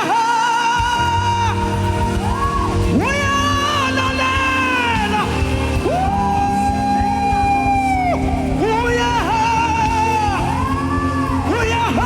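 Gospel worship singing: a voice holds long notes with vibrato and slides between them in free, wordless runs over a steady musical backing. The low part of the accompaniment comes in about a second in.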